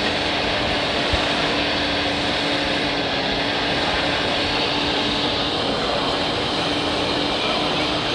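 Steady mechanical drone of radio-controlled model trucks and machinery running, with a constant hum held at one pitch.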